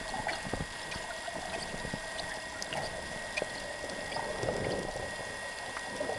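Underwater water noise as a spearfishing diver swims up towards the surface: a rushing, bubbling wash against the gun-mounted camera, with scattered small clicks and a thin steady high tone.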